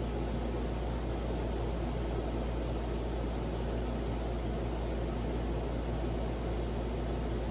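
Vintage Silkon SCF-UCC-52 ceiling fan coasting after being switched off for spin-down: a steady low hum with an even airy hiss.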